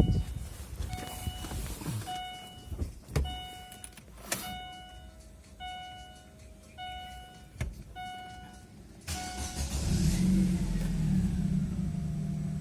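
A car's warning chime beeps over and over, about once a second, with a few clicks in between. About nine seconds in, the Chevrolet Lacetti's engine is started and settles into a steady idle at normal revs.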